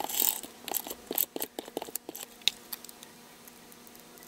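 Cardstock pieces being handled and pressed into place by hand: a quick run of small clicks and paper rustles over the first two seconds, then only a few faint taps.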